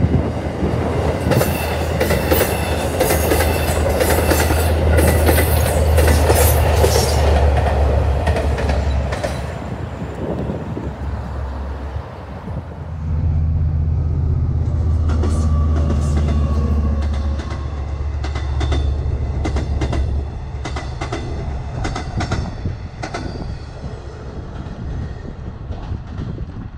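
Two Long Island Rail Road trains passing, one after the other: a steady loud rumble with wheels clicking over rail joints, a break about 12 seconds in, then a second train's rumble and clicking that fades away near the end. The first is a bilevel train, the second a silver single-level train.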